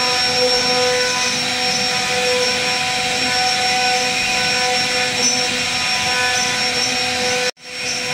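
CNC router spindle running at high speed with a steady whine, its bit cutting into a wooden door panel. The sound cuts out briefly about seven and a half seconds in, then carries on.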